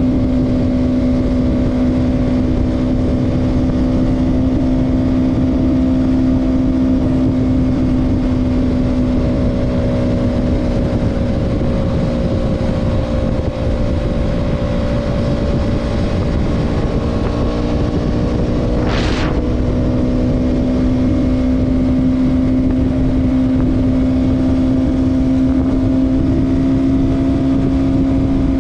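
KTM Duke 200's single-cylinder engine running steadily at cruising speed, over a low rush of wind and road noise. The engine note sags slightly past the middle and picks up again about two-thirds of the way in, where a brief hiss cuts through.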